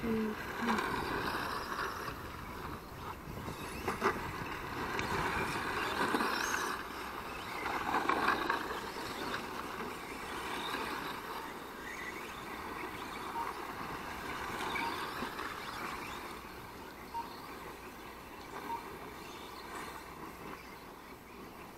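Radio-controlled model cars racing on a dirt track, their motors whining up and down in pitch as they speed up and slow down, louder in the first half and fading towards the end. A few short beeps sound in the second half.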